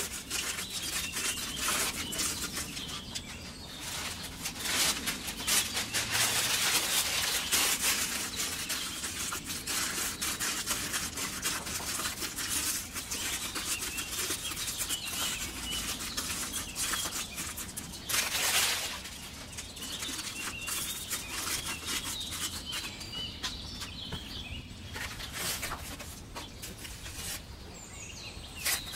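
Paper rustling and crumpling as wads of newspaper are pushed and packed by hand, loudest in a long spell a few seconds in and again briefly past the middle. Birds chirp faintly in the background.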